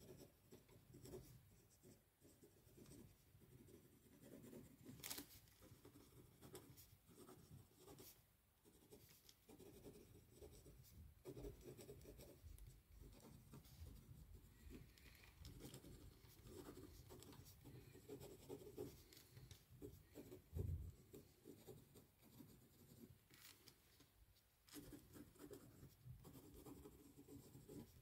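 Faint scratching of writing by hand on paper, going on with short pauses, with a few light clicks and one soft low thump.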